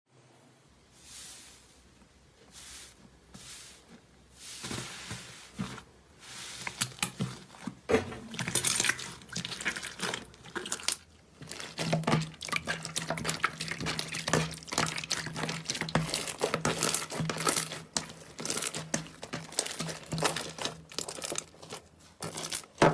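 Slime being squished and worked by hand: a dense run of wet clicks, pops and crackles that starts a few seconds in and keeps going. A faint steady low hum joins about halfway through.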